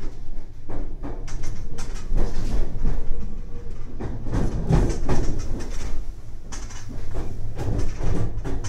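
Inside a Nankai 8300 series electric commuter car: a steady low rumble with irregular clacks as the wheels run over rail joints and points while the train pulls into its terminal station.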